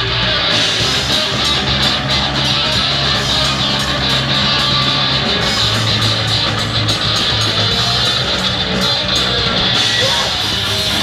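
Rock band playing heavy, loud music on electric guitar and drum kit, with no singing.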